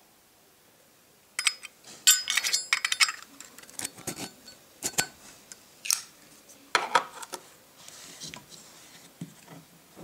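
Metal clinks and scrapes of a Zippo-style lighter's insert being handled against its metal case. A quick cluster of sharp clicks starts about a second and a half in, followed by scattered single clinks.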